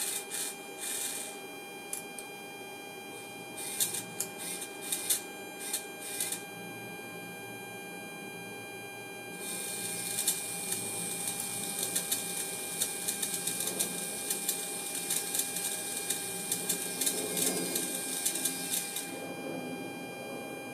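Kollsman servo altimeter's servo motor and gear train whirring, with fine ticking, as it drives the pointer and counter drums to follow the synchro. There are two short runs in the first six seconds, then a steady run of about ten seconds starting about nine seconds in. A faint steady high tone sits underneath.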